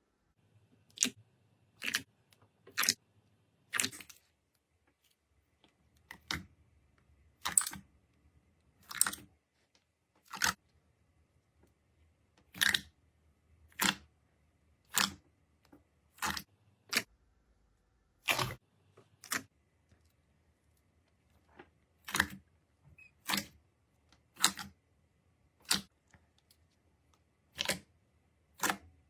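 Slime being pressed and poked by hand, giving short, crisp clicking pops about once a second, with a few gaps.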